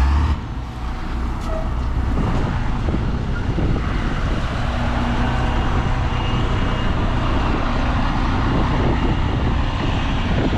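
Heavy vehicle engine running steadily, with a sharp thump right at the start.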